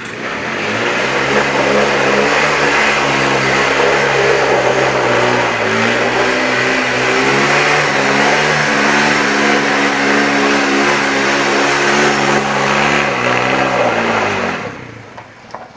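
Suzuki 250 quad bike's engine revved hard and held high while the quad drifts with its rear tyres spinning on dusty concrete. The pitch dips briefly about a third of the way through, climbs again, then drops away and stops near the end.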